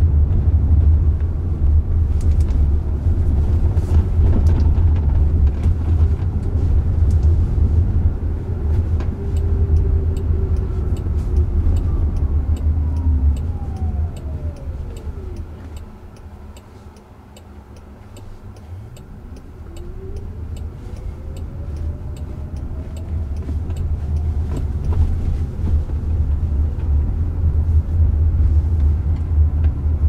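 Cabin noise of a Jaguar I-Pace electric car driving: steady low road and tyre rumble. The drive motor's whine falls in pitch as the car slows to a stop about halfway, the cabin goes quieter for a few seconds, then the whine rises again as the car pulls away and speeds up.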